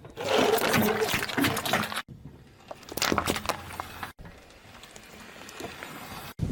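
Objects being crushed under a car tyre in three short clips, joined by abrupt cuts. The first and loudest is a wet squelching and splashing as liquid is forced out; the later two are quieter, with a few crackles and small clicks.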